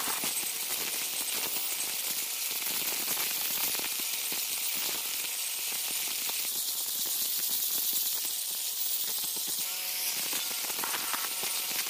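Electric angle grinder with a grinding disc working the inside of a hard river-stone mortar: a steady, gritty grinding hiss with constant crackle from the stone, its tone shifting for a few seconds past the middle.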